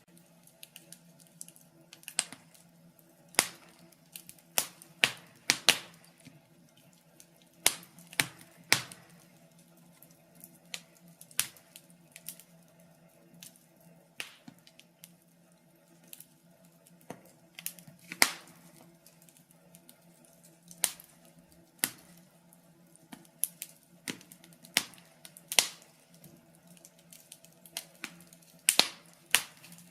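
Wood fire burning in a fireplace, crackling with irregular sharp pops and snaps, some in quick pairs, over a faint steady hum.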